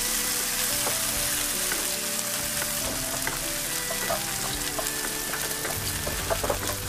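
Dried tiny shrimp (udang rebon) sizzling in hot oil in a nonstick wok, stirred and scraped with a wooden spatula, with small scattered ticks from the spatula and the shrimp.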